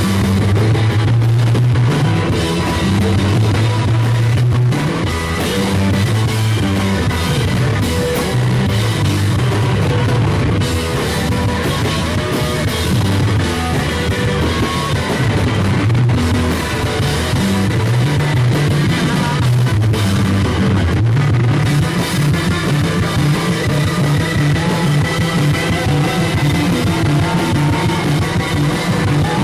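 Rock band playing live: electric guitars over a drum kit, loud and continuous.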